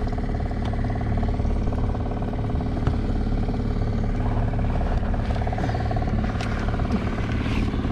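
Boat engine running steadily at trolling speed, an even hum with a few light knocks over it.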